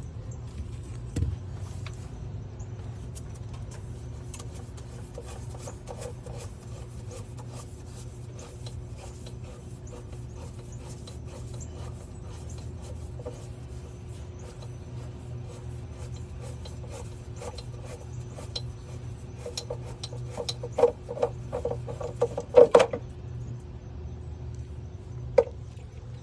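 Fuel filter on a Cummins ISX diesel being worked loose with a filter wrench: faint scraping and clicking over a steady low hum, then a burst of louder clicks and knocks, with one more sharp knock near the end.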